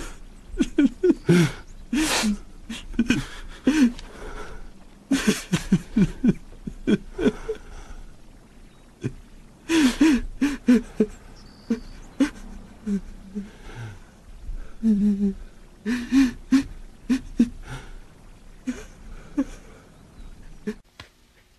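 A young man sobbing hard, with sharp gasping breaths and whimpering cries between sobs, trailing off near the end.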